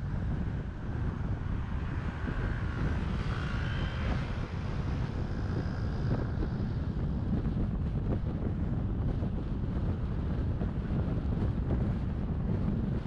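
A car driving at road speed: steady low rumble of wind and road noise, with a faint higher whine in the first half.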